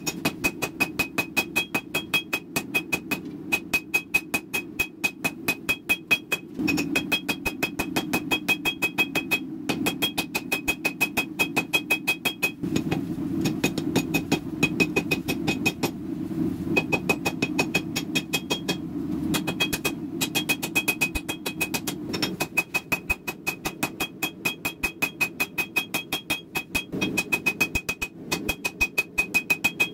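A hand hammer forging a red-hot ball-bearing damascus katana blade on an anvil: fast, even runs of hammer blows with the anvil ringing high between them, broken by short pauses. A steady low roar runs underneath.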